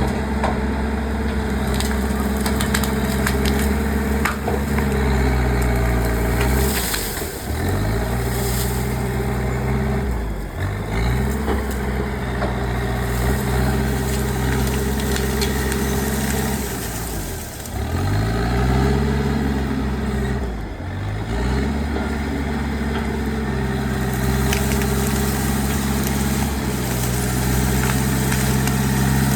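Komatsu bulldozer's diesel engine running hard under load, its note sagging and recovering about four times as it pushes, with crackling and snapping of wood being crushed.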